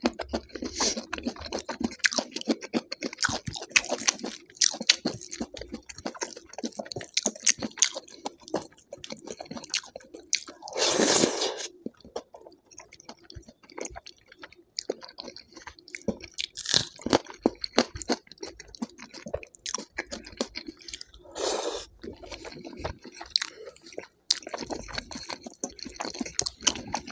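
Close-miked eating of dal and rice: continual wet chewing with crunching, and many small mouth clicks and smacks. A louder, longer noisy sound comes about eleven seconds in, with shorter ones later.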